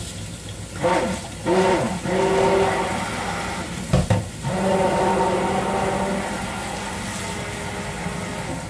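Water running from a kitchen tap and splashing into the sink, with a sharp knock about four seconds in.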